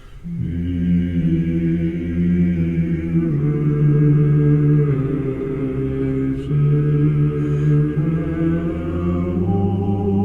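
Low male voices singing a slow chant in sustained chords, the chord changing every second or two.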